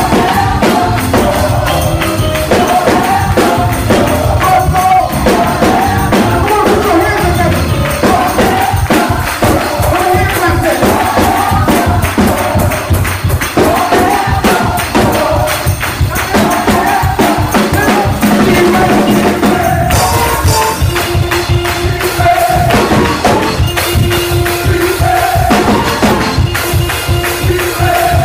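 Live gospel music: a choir singing over a drum kit and a tambourine keeping a steady fast beat.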